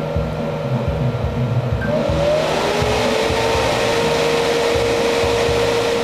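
Amplifier cooling fan spinning up about two seconds in: a rising whir that levels off into a steady tone with a rush of air. It is switched on by the heatsink's thermal sensor, which is being heated with a soldering iron, a sign that the temperature-controlled fan circuit works.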